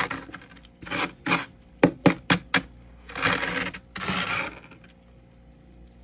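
Freezer frost crunching: a quick run of sharp crunches, then two longer, grainier crunching stretches, the sound stopping about four and a half seconds in.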